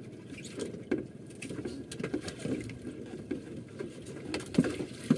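Water lapping and splashing against the hull of a small wooden outrigger boat, an irregular patter with a few sharp knocks about a second in and twice near the end.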